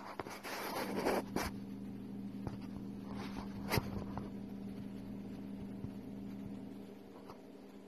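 Scraping rustles of sand and scales as a desert viper shifts its coils and settles into loose sand, loudest in the first second or so and again briefly near the middle, over a steady electrical hum.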